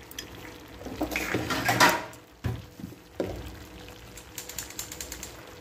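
Thick masala gravy simmering and spluttering in a pan, with a louder burst of noise between one and two seconds in, a couple of knocks after it, and a run of light crackling clicks near the end.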